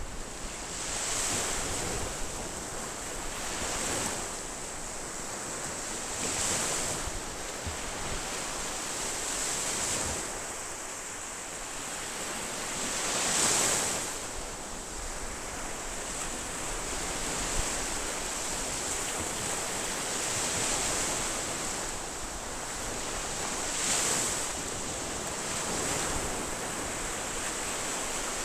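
Ocean surf: a steady hiss of waves breaking and washing in, swelling every few seconds, the biggest swell about halfway through.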